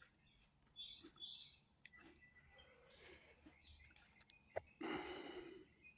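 Near silence, with faint high chirps and a few soft clicks, and a short rustle about five seconds in.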